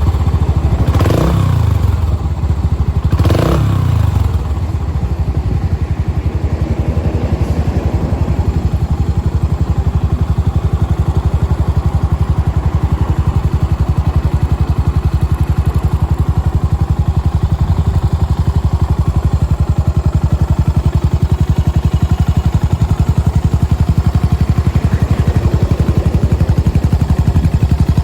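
Yamaha SR400's single-cylinder air-cooled engine running through an aftermarket GOODS silencer. It is revved twice briefly near the start, then settles into a steady, evenly pulsing idle.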